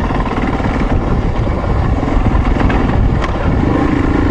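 Motorcycle engine running under way on a dirt trail, mixed with wind rush on the microphone. A few sharp clicks come about three seconds in, and a steadier engine tone sets in near the end.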